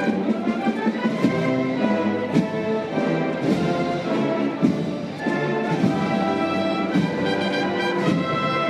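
Brass band playing a slow Holy Week processional march behind a palio float, brass carrying the melody over a drum stroke a little more than once a second.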